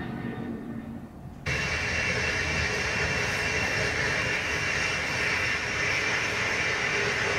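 Jet airliner engines at high power, played from a video on a television: a steady, loud rush that starts suddenly about a second and a half in, after a quieter stretch.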